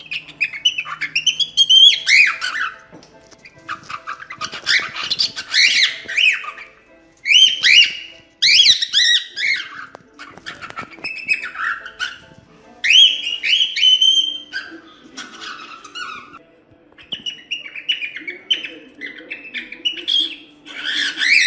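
Cockatiel singing: bouts of quick, warbling whistled notes mixed with harsher chattering ones, with short pauses between bouts.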